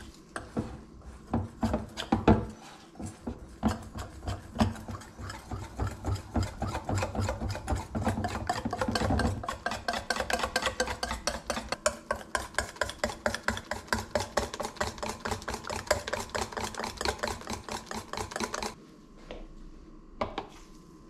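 Wire whisk beating batter in a glass bowl: a fast, steady run of scraping, clinking strokes, about four a second, that stops about two seconds before the end.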